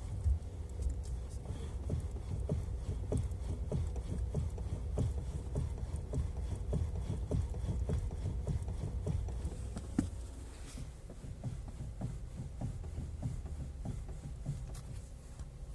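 Knocking from the steering rack of a Kia Ceed facelift: short sharp knocks, about two a second, over a low rumble. The owner takes it for a steering rack knock, a sign of play or wear in the rack.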